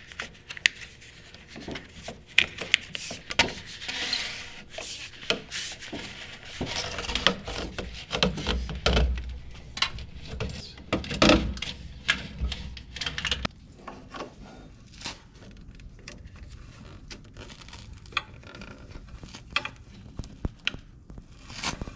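Thick charging cables being fed through the truck's old diesel filler passage, with rubbing and scraping against the surrounding metal and plastic, scattered clicks and knocks, and a few low thumps in the middle.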